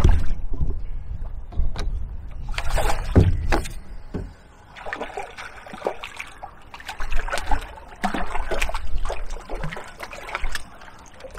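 A small hooked mullet splashing and thrashing at the surface while a landing net is pushed through the water under it, in irregular splashes and sloshes.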